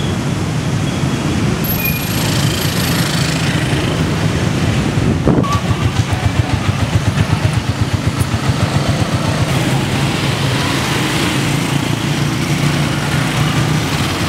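Street traffic of motorcycle taxis, their small motorcycle engines running with a low rumble. From about five seconds in, a nearby engine chugs in a rapid pulsing beat for a few seconds, then fades back into the traffic.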